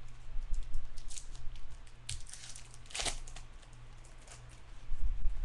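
Hands handling baseball cards and a foil card-pack wrapper: crinkling, rustling and a few sharp clicks, loudest in the middle, with a low thump near the end, over a steady low hum.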